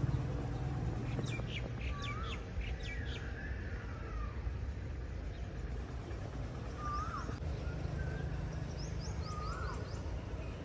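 Birds calling in the open: several short hooked whistles repeated every few seconds and quick runs of high chirps, over a low steady rumble.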